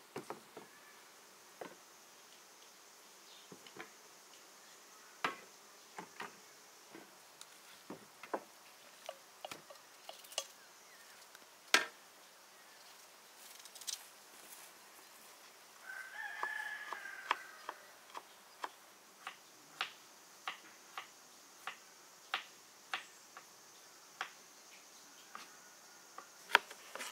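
Irregular sharp knocks and taps, every second or so, with a rooster crowing once about midway and a faint steady hum of insects behind.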